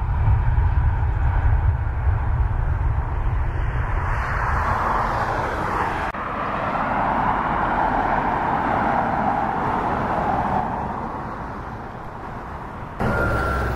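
Jet airliner engines running at taxi power, a steady rushing roar, with wind rumbling on the microphone in the first few seconds. The sound changes abruptly about six seconds in, swells and fades, and changes again near the end, where a thin steady engine whine comes in.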